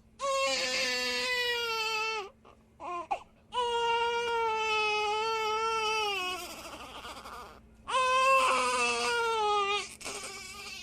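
Infant crying: three long wailing cries, each a few seconds, pitch sagging at the end, with short gasping breaths between them.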